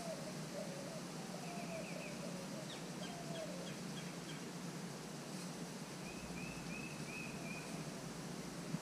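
Wild birds calling: a lower warbling call repeated over the first few seconds, and short high trills about a second and a half in and again near the end, over a steady low hum.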